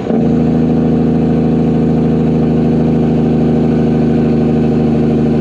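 Dump truck's diesel engine running at steady revs: a loud, even drone of unchanging pitch that comes in abruptly at the start.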